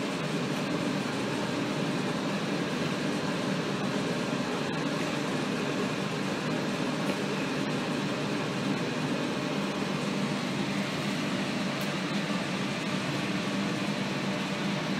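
Steady mechanical hum with a hiss over it, even in level throughout and with no distinct sounds standing out.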